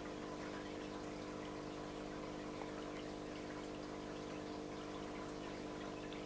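Steady machine hum with several held tones, under a faint watery trickle and a few small ticks.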